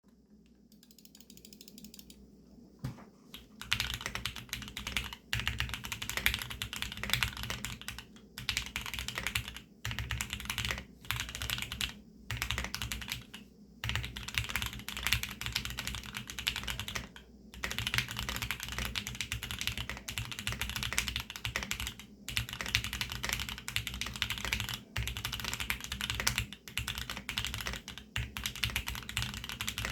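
Fast typing on a Geonworks F1-8X custom aluminium keyboard with a polycarbonate bottom, lubed Tealios V2 linear switches and Monstargear TUNA PBT double-shot keycaps, picked up by a phone's microphone. The typing starts about three seconds in and runs as a dense stream of keystrokes, with short pauses every few seconds.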